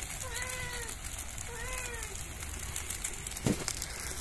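An animal calls twice, about a second apart, each call a short cry that rises and falls. A steady crackling hiss runs underneath, and there is a single thud near the end.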